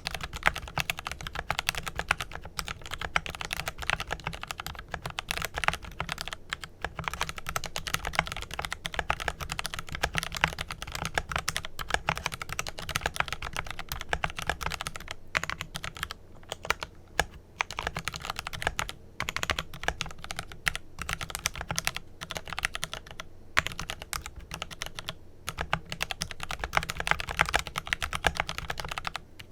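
Continuous fast typing on a Glorious GMMK Pro mechanical keyboard with lubed Kailh Pro Purple tactile switches and GBPT keycaps: a dense run of keystroke clicks with a few brief pauses.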